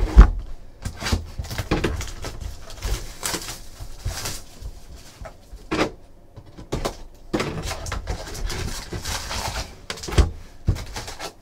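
A shrink-wrapped cardboard box of trading-card packs being cut open and unpacked: plastic wrap rustling, cardboard flaps scraping, and several knocks of the box and packs against the table, the loudest just after the start and about six and ten seconds in.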